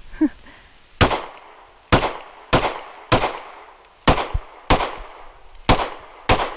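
Pistol being fired in a steady string of about nine shots, most about half a second apart, with a slightly longer pause after the fourth. Each shot has a short echoing tail.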